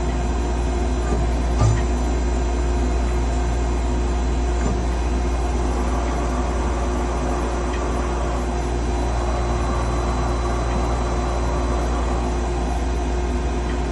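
Gleason 200GH CNC gear hobber running steadily: a constant machine hum with several steady tones over it, and one short knock about a second and a half in.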